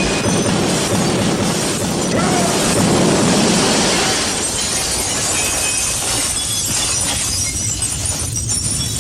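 Loud, continuous crashing and shattering noise, like breaking glass mixed with blasts, easing off slightly near the end.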